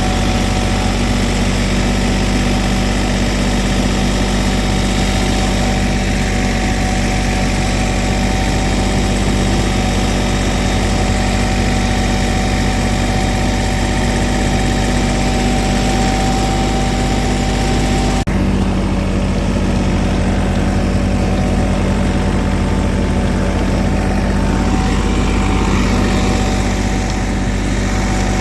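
Diesel engine of an asphalt paver running steadily, with a steady whine over it. The sound changes abruptly about two-thirds of the way through.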